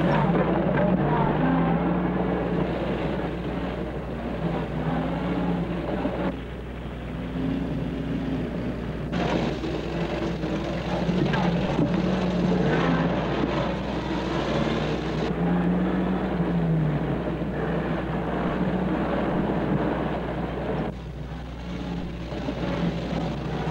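GAZ-21 Volga car engines running hard and revving, the pitch rising and falling, with abrupt changes where the sound track cuts between shots. A steady low hum runs underneath.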